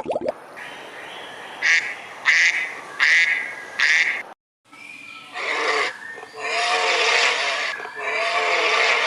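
Animal calls: four short, harsh calls at an even spacing over a background hiss, then, after a brief cut, a different run of longer, noisy calls.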